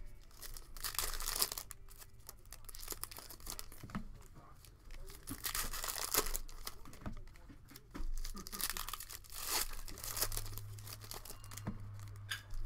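Plastic wrapping being torn and crinkled as baseball card hobby boxes and packs are opened, an irregular run of tearing and rustling.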